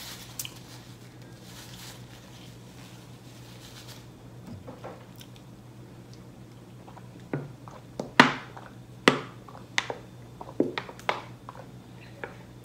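A person drinking from a plastic water bottle, with a string of sharp gulping swallows starting about seven seconds in, over a faint steady low hum.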